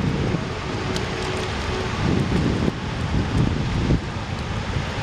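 Wind buffeting the camera's microphone: a steady low rumble that swells and dips in gusts.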